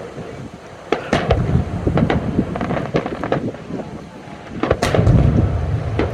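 Aerial fireworks bursting: a run of sharp cracks with deep rumbling booms, heaviest about a second in and again near the end.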